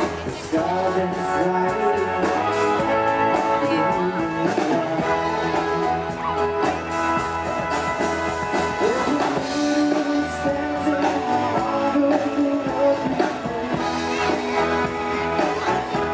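A naval band playing live music in concert.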